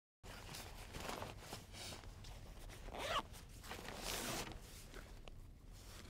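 Zipper on a fabric backpack being pulled in several quick strokes, the strongest about one, three and four seconds in, with the fabric and straps rustling as the pack is handled and lifted. A low steady rumble sits underneath.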